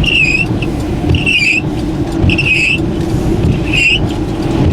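Windshield wipers squealing across the glass, four squeaks a little over a second apart, over a loud, steady roar of tornado-force wind on the vehicle.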